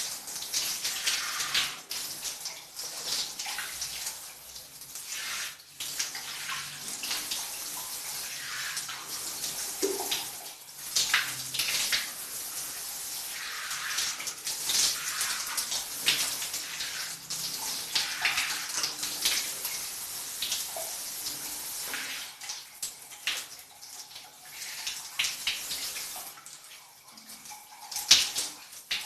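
Shower running, its water falling and splashing unevenly as someone bathes under it. The spray thins out for a few seconds near the end, then one sharp, loud splash.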